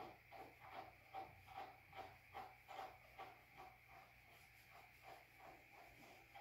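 Slicker brush stroking through a dog's coat, faint quick light strokes about two or three a second, working out a tangle.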